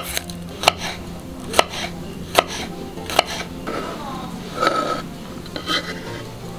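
Kitchen knife chopping garlic on a wooden cutting board: five sharp knocks about 0.8 s apart, then the blade scraping the chopped pieces across the board about four seconds in.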